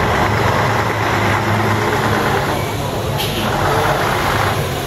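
Heavy six-wheel military recovery truck's diesel engine running steadily as the truck drives slowly toward the microphone, with a short hiss about three seconds in.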